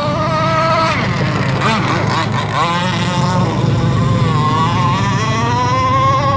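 Boat motor running steadily, its pitch dipping about two seconds in, then climbing back up toward the end.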